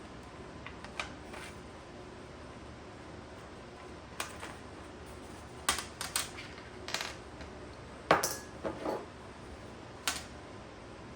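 Irregular small clicks and taps of plastic and metal laptop parts and screws being handled and set down during reassembly, with a small cluster of knocks about two-thirds of the way in.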